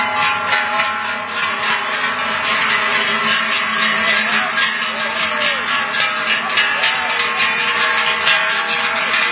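Many large cowbells clanging and ringing without a break as the cows wearing them walk past in a procession, several bells overlapping.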